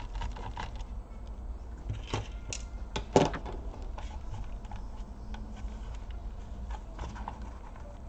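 Small clicks and taps of gloved hands handling a laptop's plastic palmrest and its screws, with one sharper click about three seconds in.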